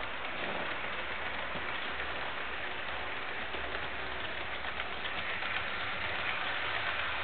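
HO scale model train, a D&H RS-2 diesel model hauling coal hoppers, running along the track: a steady rattle of fine rapid clicks from wheels and motor, getting a little louder near the end as the train comes onto the bridge.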